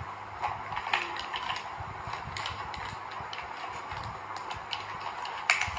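Faint, irregular clicks and light taps of small objects being handled, over a low steady hum.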